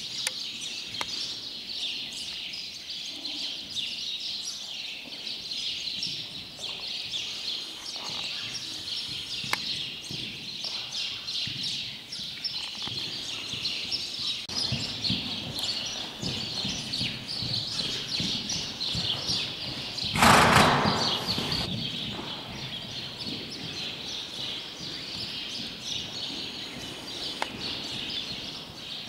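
Many small birds chirping busily and without a break, with the dull thuds of a horse's hooves trotting on sand footing in the middle part. About two-thirds of the way through, a sudden loud noisy burst lasts about a second.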